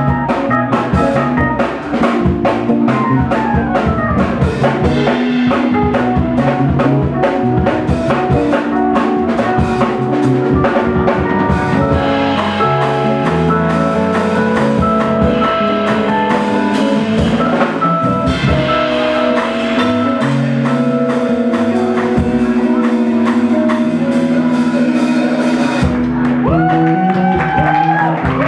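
A live band playing an instrumental passage: a drum kit keeping time under guitars and a keyboard, with held notes. A sliding, rising note comes near the end.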